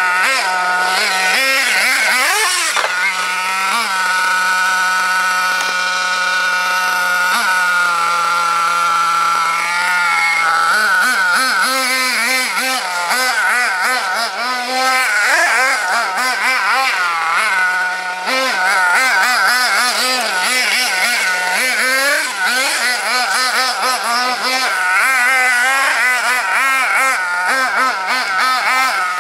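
Hobao Hyper ST 1/8-scale truggy's MacStar .28 nitro engine, tuned to run slightly rich. It holds a fairly steady pitch for several seconds, then revs up and down rapidly as the throttle is worked.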